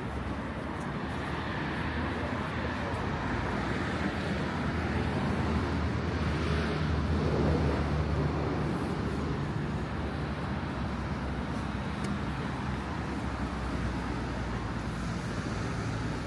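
Street traffic with a motor vehicle's engine running, swelling louder about halfway through as it passes close, then easing off.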